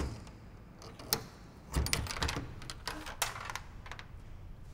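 A coin pushed into a vending machine's coin slot: a sharp click, then a run of clicks and rattles as coins drop through the coin mechanism.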